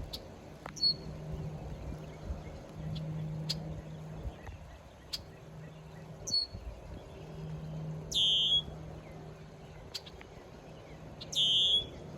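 Birds calling: a few short chirps, and two louder, harsher calls about three seconds apart, over a faint steady low hum.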